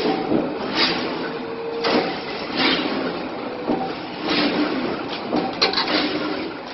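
Corrugated-cardboard box-making machine running, with a sharp swishing stroke about once a second as sheets are fed through, over a steady mechanical hum.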